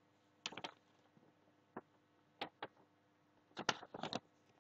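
Faint, scattered computer mouse clicks, a few of them in quick pairs and clusters, over a faint steady electrical hum.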